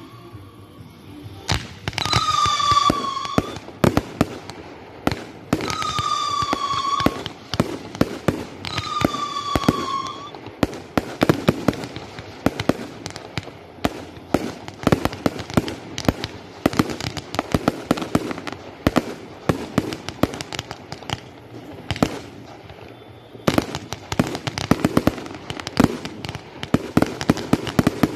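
Fireworks display. In the first ten seconds three high whistles sound about three and a half seconds apart, each about a second long and falling slightly in pitch. After that comes a dense, irregular run of bangs and crackles from bursting shells.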